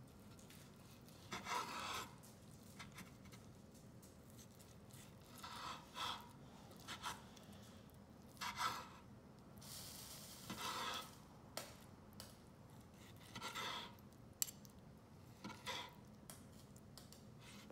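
Knife slicing through grilled wild hog tenderloin on a bamboo cutting board: faint, short scraping strokes every second or two as the blade saws through the meat and rubs against the wood.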